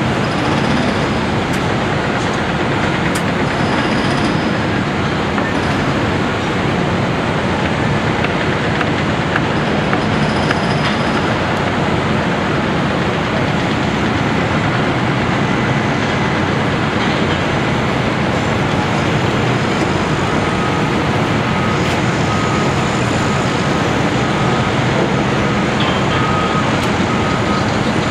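Steady din of city street traffic and heavy construction machinery. From about twenty seconds in, a high beep repeats about once a second.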